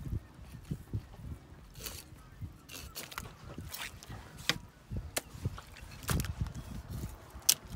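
A knife filleting a cod on a cutting board: irregular scrapes and clicks of the blade, with soft knocks as the fish is handled on the board. A sharp click comes near the end.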